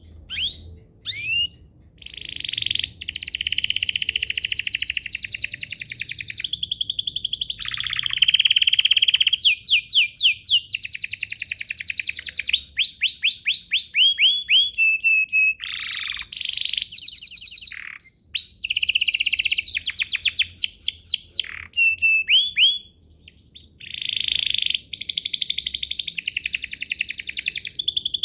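Domestic canary singing a long, fast song: a few short chirps, then sustained rapid trills and runs of quickly repeated rising notes. The song breaks off briefly near the end and then starts again.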